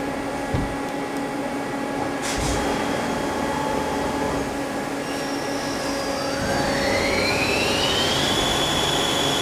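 Mazak CNC lathe starting its cycle with the coolant pump running and coolant spraying, and two short knocks in the first few seconds. About six seconds in the spindle spins up with a rising whine that levels off at a steady pitch near eight seconds as it reaches cutting speed.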